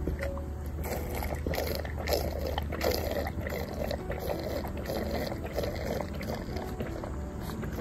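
A goat drinking water from a galvanized metal bucket: a quick, uneven run of slurps and small splashes that starts about a second in.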